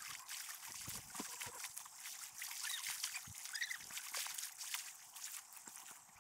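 Faint trickling and lapping of lagoon water around people floating in it, with many small drips and clicks.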